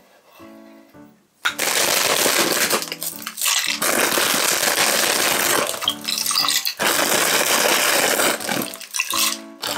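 Dry fusilli pasta poured from its plastic bag into a stainless steel pot of water: a loud, dense rush of pasta pieces hitting the water and the pot, in two long pours with a short break about six seconds in. Light background music plays under it.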